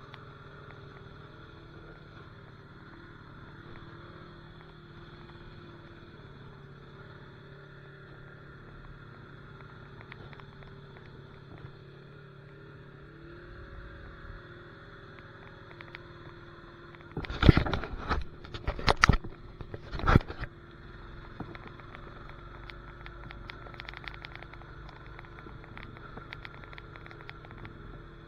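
Honda Rancher ATV's single-cylinder engine running steadily on a dirt trail. About two-thirds of the way through, a few loud, rough bursts of noise come in quick succession.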